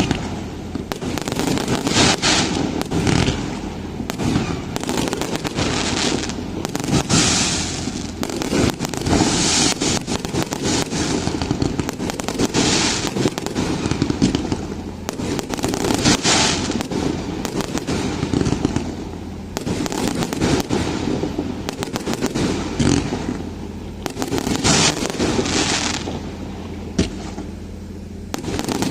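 Fireworks and firecrackers going off without pause: a dense crackle of sharp bangs, with louder hissing bursts every few seconds.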